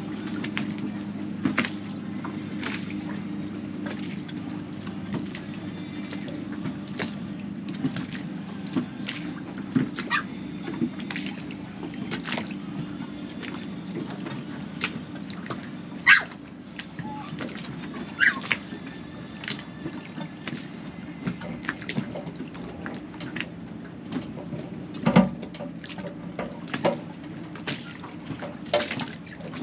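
Small waves lapping and slapping against the hull of an anchored boat, in short irregular slaps over a steady low hum.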